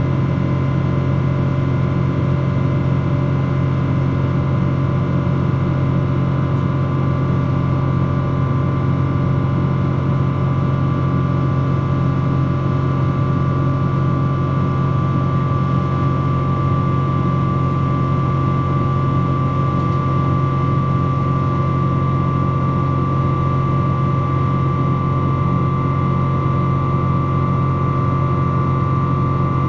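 Rolls-Royce Trent 800 turbofan on a Boeing 777 during the climb after takeoff, heard through the cabin window: a loud, steady low drone with a thin high whine that grows a little stronger about halfway through.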